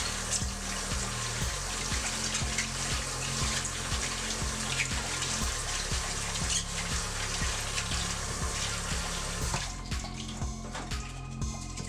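Water running steadily from a kitchen tap into a sink, shut off suddenly near the end, over background music with a steady beat.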